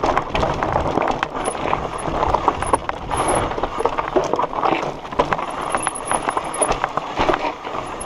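Mountain bike clattering over a rocky trail: an irregular rattle of many sharp knocks as the tyres hit loose stones and the bike's chain and frame shake.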